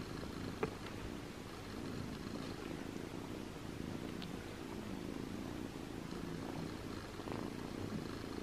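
Persian kitten purring steadily.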